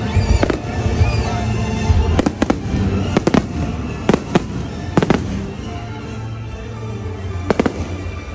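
Fireworks going off in an irregular series of sharp bangs, some in quick pairs, thinning out after about five seconds, with music playing throughout.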